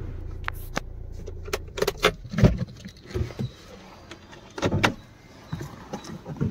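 Hyundai i20's 1.4-litre CRDi diesel idling, then shut off a little under two seconds in. Several sharp clicks and knocks follow, with key clinks, as the key and cabin fittings are handled.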